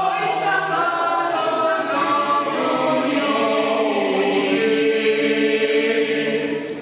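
Mixed choir of women's and men's voices singing the closing phrase of a song, moving through sustained chords and ending on a long held chord.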